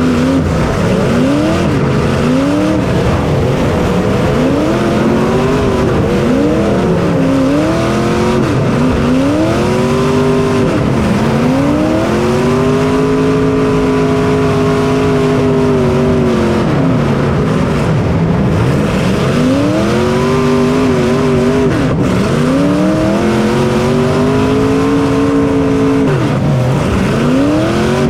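Race car engine picked up by the onboard camera, revving up and dropping off again and again every few seconds as the car runs laps.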